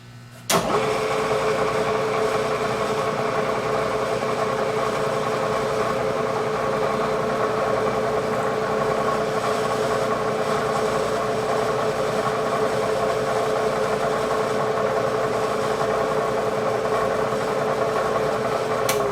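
Bridgeport milling machine's spindle motor switched on with a click about half a second in, running steadily in back gear at about 70 rpm while power-tapping a hole, then switched off near the end.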